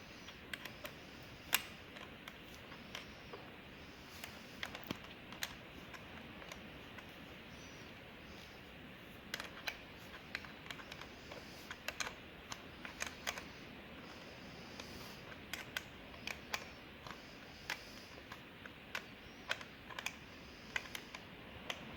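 Light, irregular clicks and taps of small parts being handled while battery cables and their terminal hardware are fitted and positioned.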